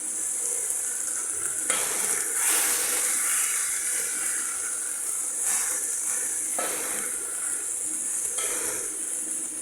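Chopped kale (sukuma wiki) frying in a metal cooking pot, a steady sizzling hiss that swells louder a few times, as when the greens are stirred.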